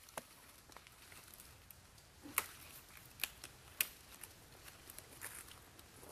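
Boots stepping slowly along a fallen tree trunk: a few faint, sharp cracks and crunches of dry bark and wood underfoot, spaced irregularly.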